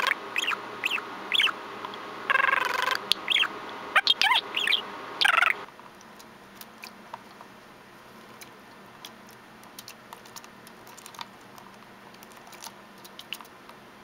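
Budgerigar chattering close up: a quick run of sharp gliding chirps and short warbled calls. About five and a half seconds in it stops suddenly, leaving only faint scattered taps and clicks.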